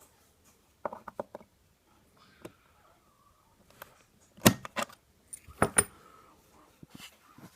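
Sharp metallic clicks and clatters of small hard parts being handled, in short clusters, with the loudest about four and a half seconds in.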